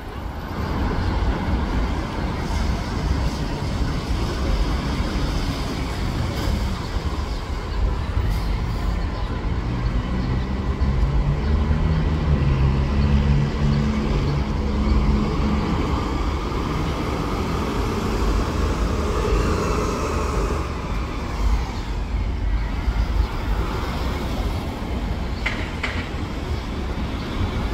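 City transit buses and street traffic running with a steady low rumble. A bus engine's note stands out around the middle, a rising whine follows a little later, and there are a few sharp clicks near the end.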